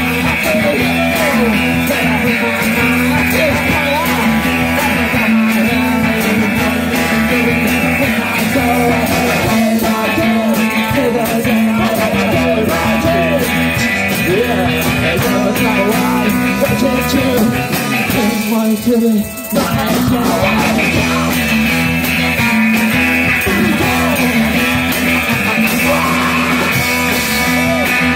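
Live band of trombone, electric guitar, bass guitar and drums playing an up-tempo number, the trombone playing a bending solo line over the band. About two-thirds of the way through the band drops out for about a second, then comes back in.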